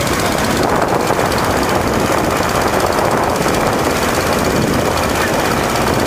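Small motorboat's engine running steadily.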